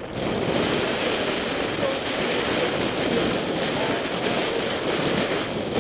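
Strong wind blowing across the microphone: a loud, steady rush of noise that comes up sharply right at the start.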